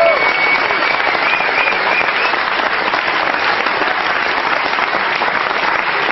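Audience applauding steadily, with a high whistle over the first two seconds.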